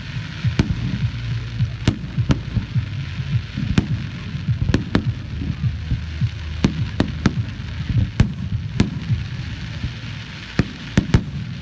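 Fireworks going off: a dozen or so sharp bangs and pops at irregular intervals, over a steady low rumble.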